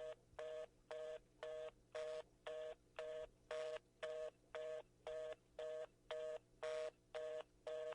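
Telephone fast-busy (reorder) tone: a pair of low steady tones beeping on and off about twice a second, the signal that the call cannot go through.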